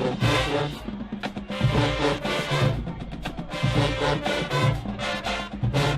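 A marching band of brass and drums playing a rhythmic tune, with loud low brass and drum hits on a regular beat.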